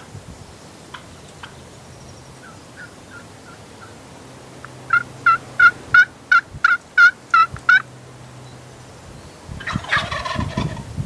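Wild turkeys calling. A few faint yelps come first, then a run of about nine loud yelps at about three a second, and near the end a denser, rougher burst of calling.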